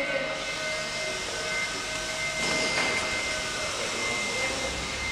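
Steady machinery noise: a constant high whine over a hiss, from equipment running on a building site.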